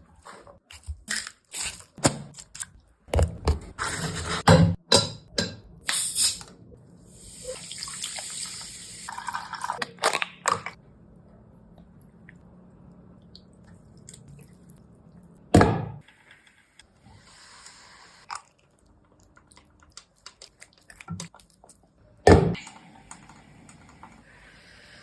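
Kitchen cooking sounds: a quick run of sharp knocks and clatters, then a few seconds of liquid running or pouring, followed by single loud knocks with quiet between them.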